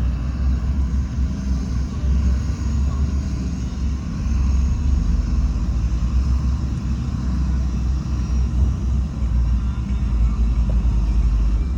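Diesel engine of heavy earthmoving machinery running steadily, a continuous deep rumble with no sudden events.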